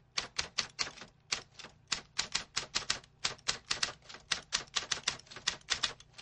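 Typewriter keys clacking in a quick, uneven run of sharp strikes, about five a second with brief pauses: a typing sound effect laid under text being typed out.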